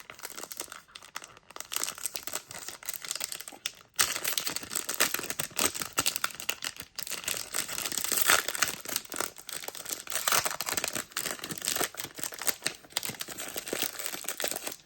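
Trading card pack wrapper being torn open and crinkled by hand, a continuous crackling with sharper tearing moments about four and eight seconds in, as the card is worked out of the tight pack.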